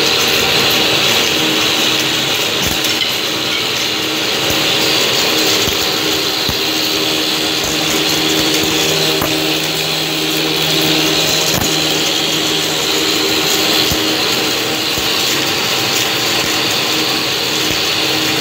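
Mc9060B wood round-stick milling machine running under load, its cutter head planing a wooden rod into a round stick as the feed rollers draw it through: a loud, steady whine and cutting noise with occasional knocks. A lower hum joins for a few seconds in the middle.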